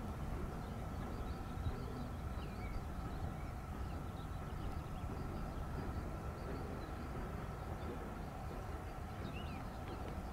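Outdoor field ambience: a steady low rumble with a faint steady tone above it, and a few faint bird chirps, about two and a half seconds in and again near the end.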